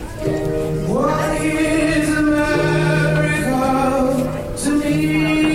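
A choir singing long held notes in several-part harmony, without words. The voices come in just after the start, and one part slides up to join the chord about a second in.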